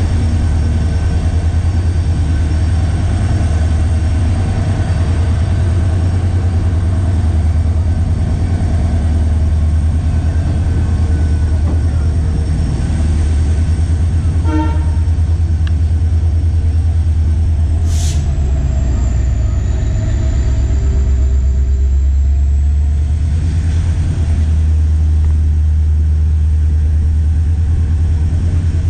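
A passenger train running at speed, heard from inside a coach: a steady heavy low rumble of wheels on the track and the hauling EMD diesel locomotive. A single sharp knock comes about eighteen seconds in.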